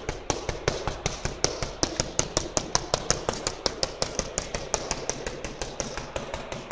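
Fists striking a hanging heavy punching bag in rapid Wing Chun chain punches: a fast, even run of sharp thuds, about eight a second.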